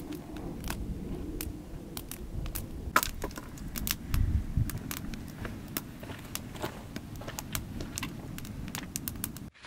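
Wood campfire crackling, with frequent sharp pops over a low rumble and one louder pop about three seconds in.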